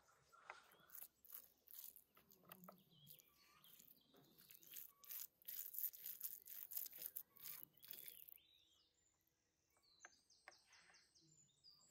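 A wooden spoon spreading and pressing minced meat across a baking tray: quick, moist scraping strokes, busiest around the middle. Small birds chirp near the end.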